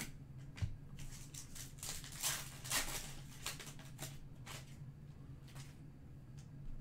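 Topps Chrome trading cards being slid and flipped through by hand, giving irregular soft clicks and rustles over a low steady hum.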